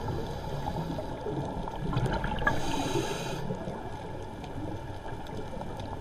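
Scuba diver breathing through a regulator, heard muffled through an underwater camera housing: a hiss of breath drawn in about two and a half seconds in, over low rumbling and bubbling.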